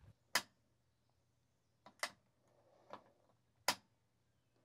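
Four sharp clicks at uneven intervals over a faint steady low hum.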